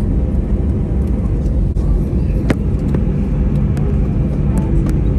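Steady low rumble of a vehicle in motion, heard from inside, with a few faint clicks and ticks in the second half.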